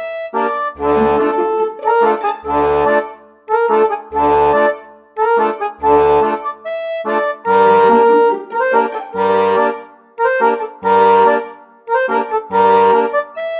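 Background instrumental music: a lively tune with a reedy melody over a steady bass-and-chord accompaniment, the low bass notes coming about once a second.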